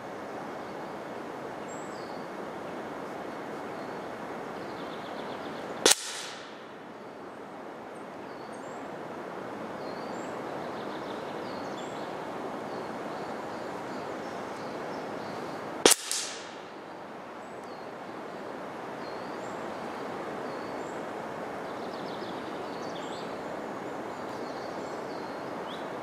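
Two sharp cracks of a Hatsan AT44-10 .22 PCP air rifle firing pellets at a field target, about ten seconds apart, each with a short tail. Heard from near the target, over a steady outdoor hiss.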